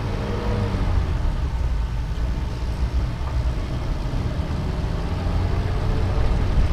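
Suzuki Carry Futura's 1.0-litre engine and road noise while driving, a steady low drone.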